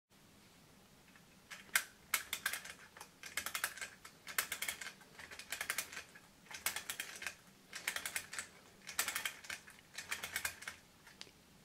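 Clockwork motor of a British Express tinplate toy locomotive being wound with its key: about nine short bursts of rapid ratchet clicks, roughly one burst a second.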